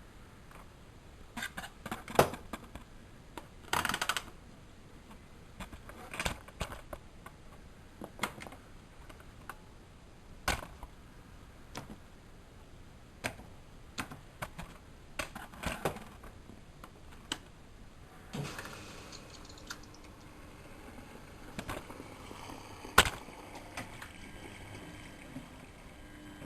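Miele Novotronic W914 washing machine early in its cycle: scattered mechanical clicks and knocks, then from about eighteen seconds in a steady low hum with a faint hiss.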